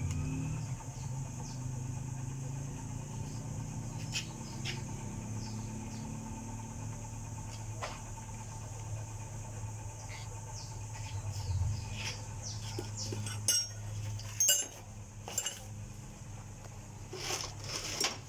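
An engine running steadily with a low hum, its pitch dropping slightly just after the start. Scattered light clicks and brief high chirps come in the second half.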